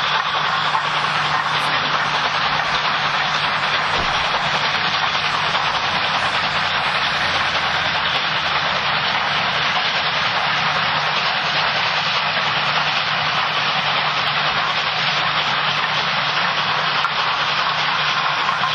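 Steam locomotive, LNER A4 Pacific 60019 Bittern, letting off a steady hiss of steam with a faint low hum underneath and no exhaust beats.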